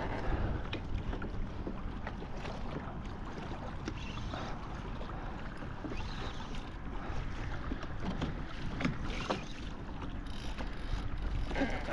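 Water moving against a fishing kayak's hull while it is pulled along by a hooked fish, with wind rumbling on the microphone. A few light clicks and knocks come through now and then.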